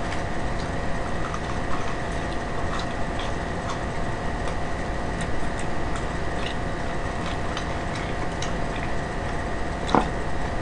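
Faint scattered clicks and smacks of someone eating fried chicken, over a steady background hiss with a faint constant hum.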